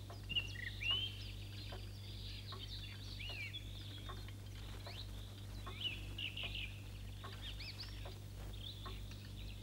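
Faint birdsong: many short, high chirps and twitters from small birds, over a low steady hum.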